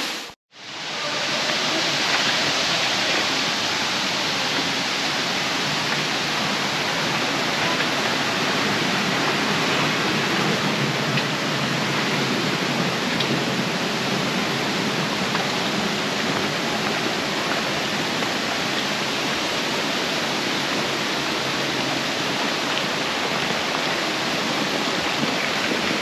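Steady rush of flowing water from the waterfall and rocky river, an even hiss with no rhythm. The sound drops out for a moment just after the start.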